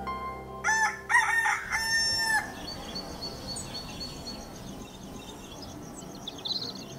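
A rooster crowing once, about half a second in: a cock-a-doodle-doo of three pitched calls, the last held longest, as background music fades out. Afterwards a quiet room ambience with a faint, steady high-pitched chirping.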